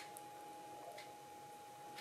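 A clock ticking faintly, once a second, over a faint steady hum in a quiet room.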